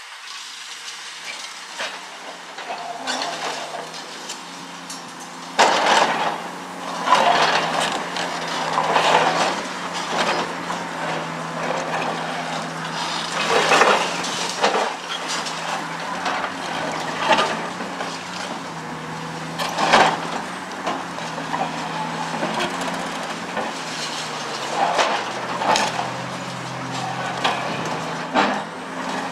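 Caterpillar 345C L excavator's diesel engine running steadily under hydraulic load while its concrete crusher jaws crunch through reinforced concrete. Irregular cracks and crashes of breaking concrete and falling rubble ring out, the loudest about 6, 14 and 20 seconds in.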